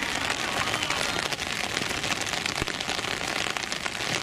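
Rain pattering steadily, a dense crackle of many small drops.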